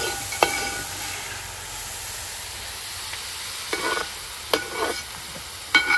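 Sliced onions sizzling steadily in hot oil in a large metal pot. A perforated steel ladle stirs them and several times clinks and rings against the pot, once near the start and several times in the second half.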